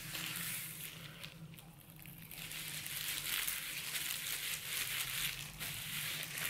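Disposable plastic gloves crinkling and rustling as hair dye is squeezed from an applicator bottle and rubbed into wet hair, with a short lull about two seconds in.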